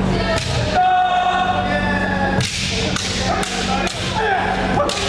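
Bamboo shinai sticks clacking and striking armour during kendo sparring, with several sharp hits, over overlapping long kiai shouts from many players, some held and some falling in pitch. Everything echoes in a large gym.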